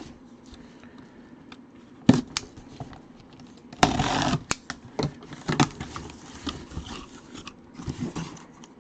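A mini helmet box being handled and opened by hand: scattered clicks and knocks of cardboard and plastic packaging, with a short burst of scraping about four seconds in.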